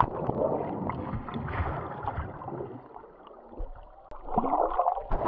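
Muffled water sloshing and gurgling around a submerged or water-covered camera, thinning out about three seconds in and picking up again briefly near the end.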